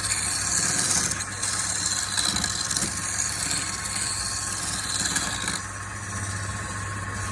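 A machine running steadily: a low hum with a hiss above it, the hiss easing off about five and a half seconds in.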